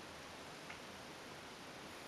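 Quiet room tone: a steady faint hiss, with one faint click a little under a second in.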